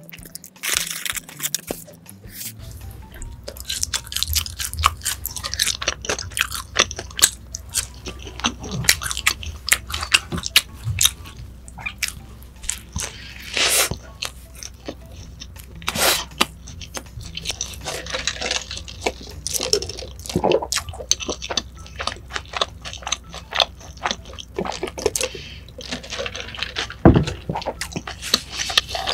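Close-miked eating: a person biting into and chewing a burger, with many sharp crunches and wet, crackly chewing.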